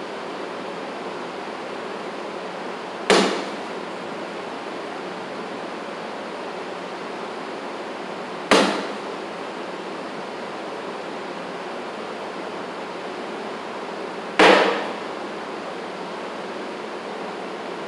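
Three cornhole bags (US Cornhole 'The Natural' pro bags) landing one by one on a wooden cornhole board, each a sharp thump that fades over about half a second, spaced roughly five to six seconds apart, over a steady hiss.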